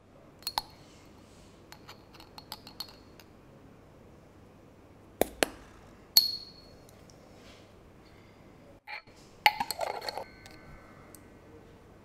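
A small glass jar of instant coffee clinking and tapping against a stainless steel pot as the powder is shaken out. The clinks are scattered and sharp, and one about six seconds in leaves the pot ringing briefly with a clear high tone. Near the end comes a denser run of clinks and knocks as the jar is handled and set down.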